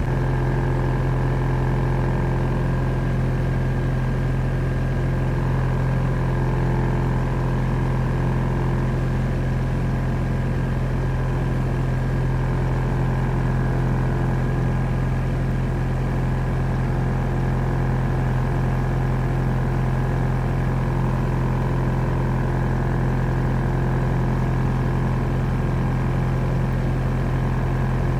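A sailboat's auxiliary engine running steadily as the boat motors through a harbor channel, a constant low hum with no change in speed.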